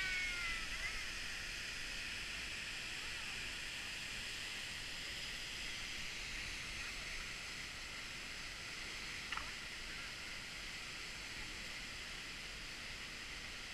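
Steady hiss and rush of Seljalandsfoss waterfall, falling water and spray close by. Faint voices are heard briefly about a second in.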